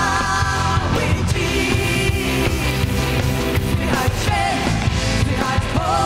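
Live worship band: women singing held notes in Polish over electric guitar and keyboard, with a full band backing.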